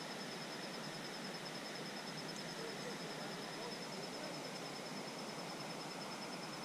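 Steady rush of flowing river water, with an insect's continuous high, rapidly pulsing trill over it.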